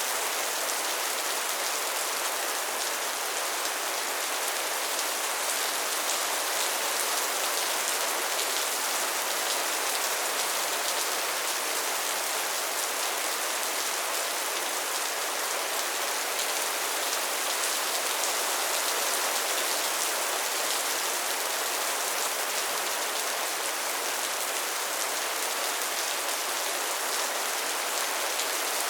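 Steady rain falling: an even, unbroken hiss, mostly high-pitched with little low rumble.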